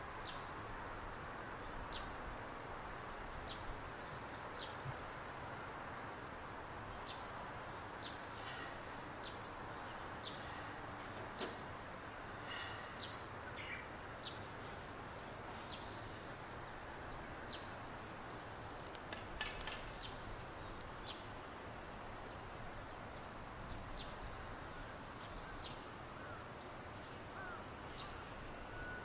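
Birds calling with short, high chirps every second or so, a few coming in quick succession about two-thirds of the way through, over a steady background hiss.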